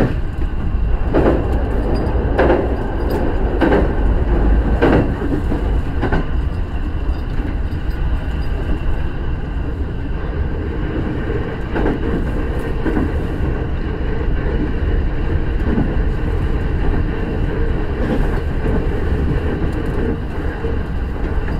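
Shinano Railway SR1 series electric train running on the line, heard from inside the train: a steady rolling rumble of wheels on rail. A run of sharp clacks comes in the first several seconds, with a few more scattered later.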